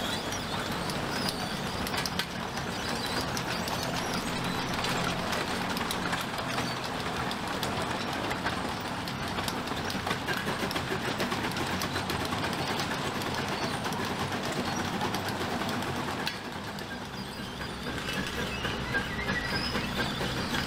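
Lombard steam log hauler running along under steam, a dense mechanical clatter from its crawler tracks and drive with the steam engine working, train-like in character. It drops in loudness for a moment about sixteen seconds in, then picks up again.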